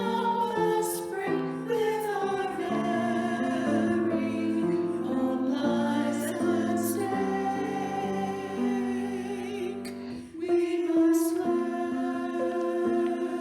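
A slow song: a singing voice holding long notes over instrumental accompaniment, with a brief pause about ten seconds in.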